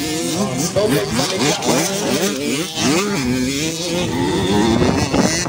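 Several 85cc two-stroke motocross dirt bikes running on the track, their engines revving up and dropping back over and over as they ride the jumps.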